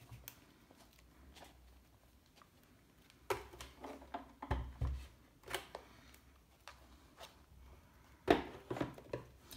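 Scattered clacks and knocks of acrylic plates and the plastic die-cutting and embossing machine being handled, with a dull thump about four and a half seconds in as the machine is moved into place; a cluster of clicks near the end as the plate stack is fed into the machine's slot.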